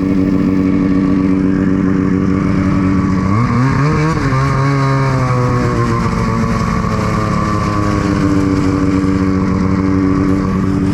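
Ski-Doo snowmobile engine running at a steady pitch; about three and a half seconds in its revs rise, then hold steady at the higher pitch.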